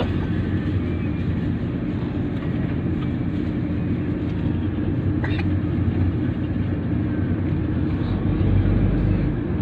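Steady low rumble of a moving vehicle heard from inside the cabin: engine and tyre noise on the road at a constant speed, with one brief higher sound about five seconds in.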